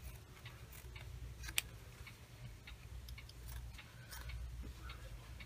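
Small pointed scissors cutting through lining fabric: faint, irregular clicks and snips of the blades, with one sharper click about a second and a half in.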